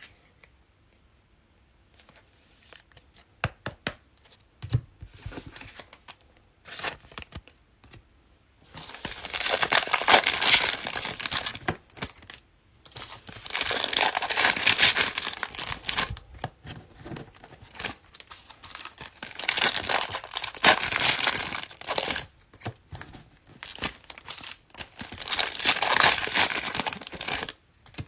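Trading card pack wrappers being torn open and crinkled, in four long bouts of crinkling, after several seconds of scattered light ticks and taps.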